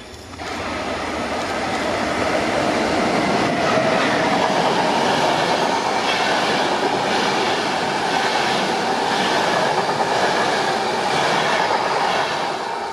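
A train passing close by: steady rumble and rail noise from its wheels on the track, with some clickety-clack. It swells about half a second in and cuts off abruptly near the end.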